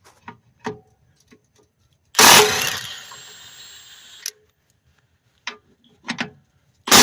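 A power tool running in loud bursts as it spins out underbody plate bolts: one run of about two seconds, about two seconds in, and a short one at the end. Between them come light clicks and taps of the tool and bolts being handled.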